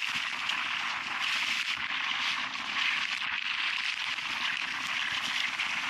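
Water rushing and spraying along the hull of a kite-pulled kayak sailing fast: a steady hiss that surges and eases.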